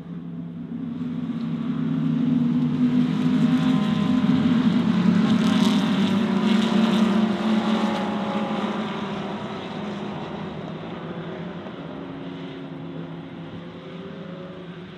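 GT race car engines passing at speed. The engine note builds over the first couple of seconds, is loudest about four to seven seconds in, then fades away.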